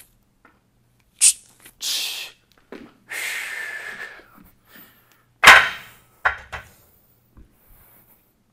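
A man breathing out hard several times after a set of dumbbell shoulder presses, then a pair of dumbbells set down with two thuds a little past halfway, the first the loudest.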